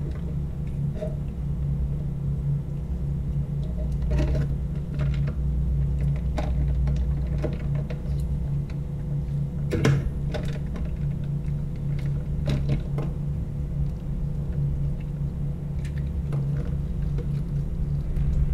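Wet squelches and scattered soft clicks as hands pull apart a raw squid's tentacles and body in a stainless-steel sink. A sharper click comes about ten seconds in. Underneath is a low, steady hum.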